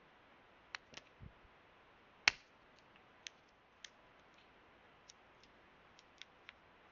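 Unboxing and handling noise: scattered light clicks and taps of small hard parts being picked up and set down, with one sharper knock about two seconds in.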